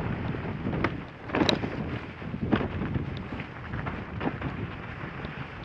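Wind rumbling on the microphone on a dog sled run, with a few irregular swishing scrapes in snow, the loudest about a second and a half in, and faint small ticks.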